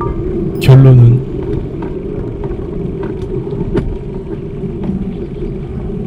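Steady low rumble of road and traffic noise, with one short spoken word about a second in.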